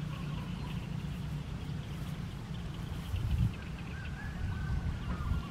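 Open-air rural ambience: a low, uneven rumble with faint high chirping calls, a few of them in the second half.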